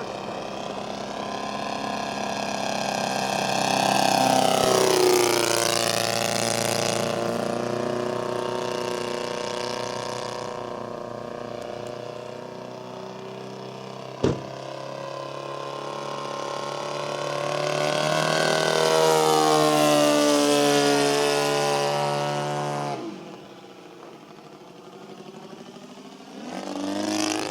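ASP 160 twin-cylinder engine of a large RC Decathlon model plane running in flight, its pitch falling as the plane makes passes, twice. The sound fades about 23 s in and rises again near the end, with one sharp click about 14 s in.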